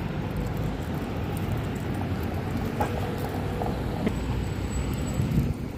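Steady rumble of road traffic, with a car driving past close by.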